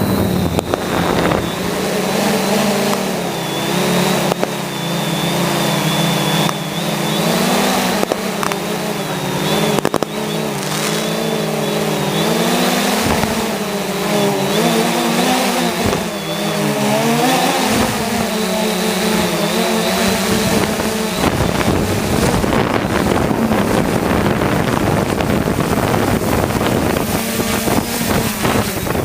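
Multirotor drone motors and propellers whirring loudly, their pitch wavering up and down as the throttle changes. About two-thirds of the way through the pitched whir fades into a steady rushing hiss.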